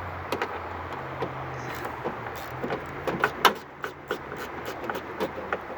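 Irregular metallic clicks and taps of a 10 mm socket on an extension working a nut inside a car door panel, over a steady low hum.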